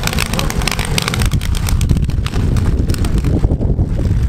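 Engines of compact demolition-derby cars running in a loud low rumble, with a rapid clatter of knocks during the first second or so.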